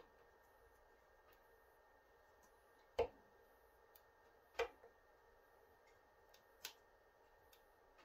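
Wood fire burning down to glowing coals in a closed Kuma wood stove: three sharp pops a second or two apart, the first about three seconds in, with fainter ticks between, over near silence.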